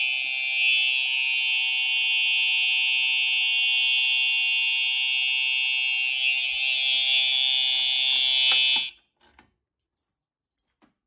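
Simplex TrueAlert 4906-9127 horn strobe sounding its horn on the continuous setting, set off by a pulled pull station: one steady, unbroken electronic horn tone that cuts off suddenly about nine seconds in.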